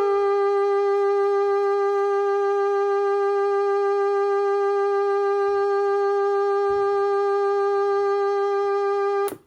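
Electronic keyboard music ending on one long held note with many bright overtones, after a quick falling run of notes; the note stops abruptly near the end.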